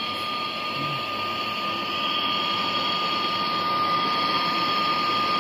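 Handheld gas torch burning with a steady hiss and a steady high tone, getting a little louder about two seconds in, as its flame heats a copper refrigerant pipe joint for brazing.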